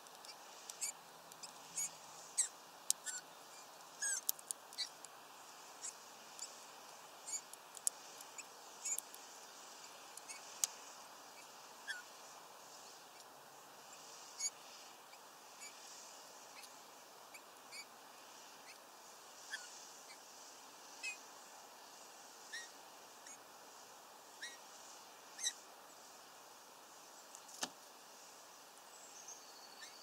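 Small birds at a seed feeder giving many short, high chirps and clicks in an irregular scatter, with a few brief falling notes and one short whistled note near the end, over a faint steady background hiss.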